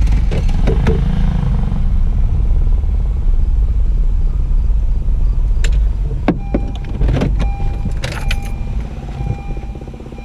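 Car cabin noise while driving: a steady low engine and road rumble that eases off over the last couple of seconds as the car slows. Several sharp clicks and knocks come in the second half.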